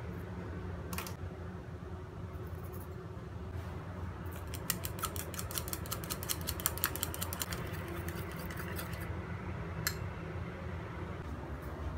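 Chopsticks beating a raw egg in a small ceramic bowl: a fast run of light clicks as the sticks strike the bowl, lasting about five seconds in the middle, with a single click before and after.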